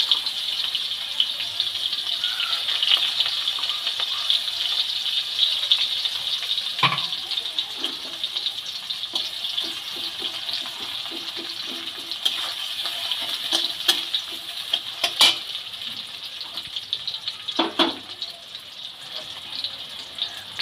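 Sliced onions sizzling and crackling in hot mustard oil in a kadai, a steady hiss that slowly grows quieter. A metal spatula knocks against the pan a few times as they are stirred.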